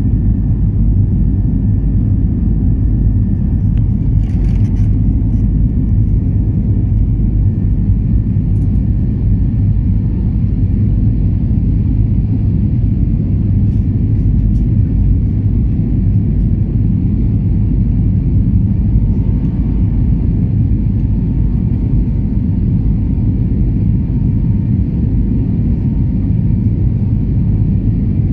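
Steady low rumble inside the cabin of an Airbus A320neo climbing after take-off.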